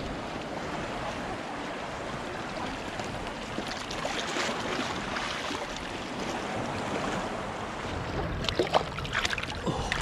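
Steady rushing wash of shallow sea water along a rocky shore and seawall, mixed with wind on the microphone. Near the end come a few short splashes as a hand dips into the water.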